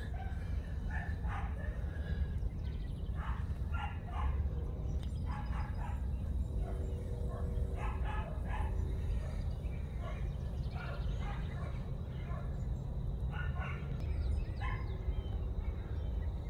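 Short animal calls repeating every second or two over a steady low rumble, with a brief steady hum about halfway through.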